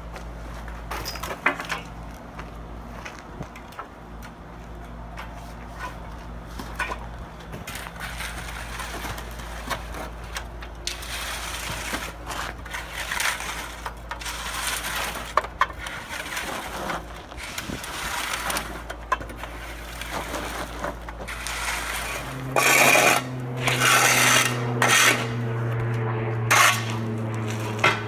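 An asphalt rake and lute drag and scrape through loose hot asphalt mix, a gritty scraping and crunching of stones, over a steady low machine hum. About 22 seconds in, a louder, higher machine drone comes in with sharper clattering.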